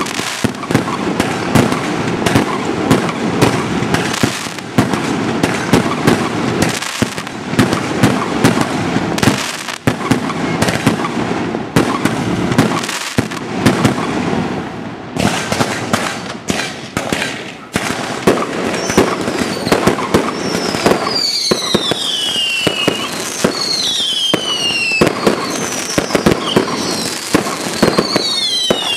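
Fireworks display: a rapid, continuous series of bangs and crackles from bursting aerial shells. From about twenty seconds in, repeated falling whistles are added, one every second or two.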